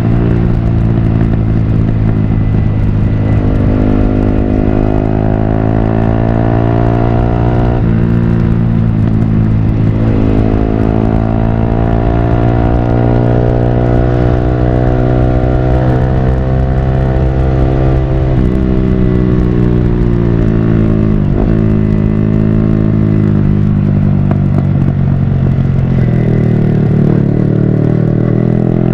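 Yamaha R15 V3's 155 cc single-cylinder engine through a Villan Pro1 aftermarket full-system exhaust, under way. The pitch climbs and then drops sharply four times as it shifts up through the gears, falls away as the bike slows about two-thirds of the way in, and climbs again near the end.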